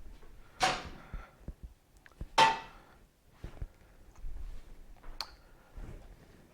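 A bare motorcycle frame being moved and set down: a few scrapes and knocks, with a sharp metallic click and a brief ring about five seconds in.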